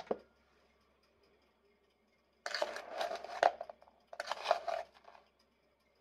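Small metal measuring spoon scooping granulated sugar out of a plastic container, twice: a gritty scraping rustle of about a second each time, about two and a half and four seconds in. A short clink right at the start.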